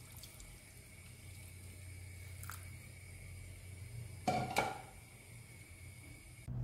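Faint kitchen handling sounds at a cooking pot of broth on the stove, a wooden spoon working among the chicken and chickpeas, over a steady low hum. A light click comes about two and a half seconds in and a short clatter about four and a half seconds in.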